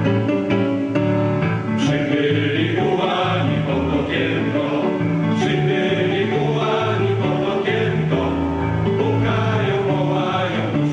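A group of voices singing a Polish patriotic song together over guitar accompaniment; the singing comes in about two seconds in after a short instrumental passage.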